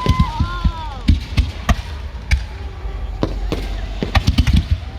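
Fireworks going off: an irregular string of sharp bangs and pops, about a dozen over a few seconds.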